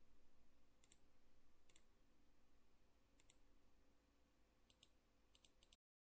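Near silence with about eight faint computer mouse clicks, single at first and then in quick pairs and a run of three; the sound cuts to total silence just before the end.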